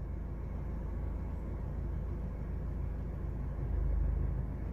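Low, steady diesel rumble of a Volvo tractor unit hauling a loaded low-bed trailer at a crawl, heard from inside a following car. It swells briefly near the end.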